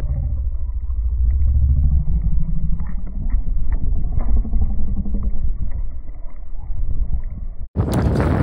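A motor running with a heavy low rumble, its pitch rising and falling; the sound is muffled, with no high tones. It cuts off suddenly near the end.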